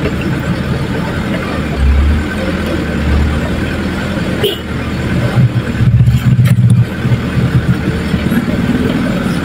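Vehicle engine running as it drives slowly over a rutted dirt road, heard from inside the cab, with a steady low rumble. Around the middle it grows louder and choppier, with a few sharp knocks and rattles as the vehicle jolts over the ruts.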